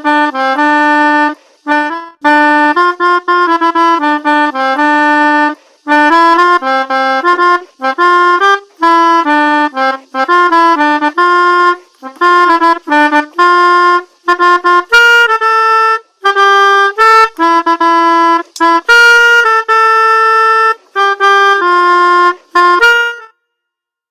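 Pianika (melodica) playing the 'telolet Basuri' bus-horn melody in short phrases of separate notes with brief pauses between them, stopping about a second before the end.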